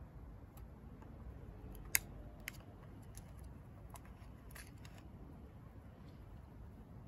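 Faint, scattered sharp clicks and small crunches as a young hedgehog noses and scrabbles at a cardboard box lined with paper. The loudest click comes about two seconds in, with another half a second later.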